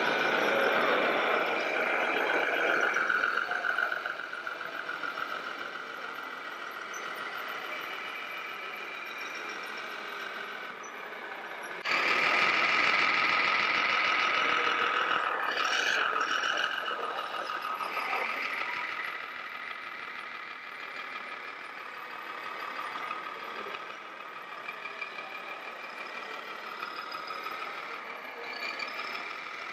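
Simulated diesel truck engine sound from a radio-controlled scale semi-truck's sound module, running steadily as the truck is driven and manoeuvred. The sound jumps louder about twelve seconds in and eases off again a few seconds later.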